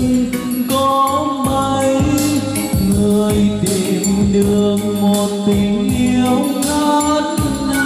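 Karaoke song played loud through karaoke loudspeakers: a singer's voice over a backing track with a steady beat.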